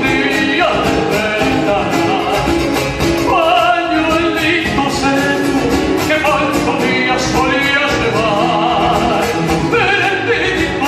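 Folk song playing: a solo singer with a wavering, vibrato-laden voice over instrumental accompaniment.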